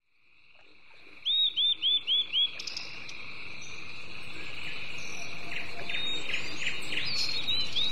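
Birds calling over a steady high insect drone that fades up from silence. About a second in, a bird gives five quick, loud arching notes, and other birds call now and then through the rest.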